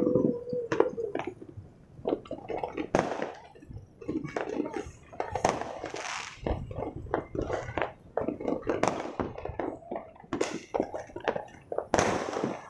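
Many fireworks and firecrackers going off at once: an irregular, unbroken stream of pops and crackles with a few louder bangs that trail off in an echo.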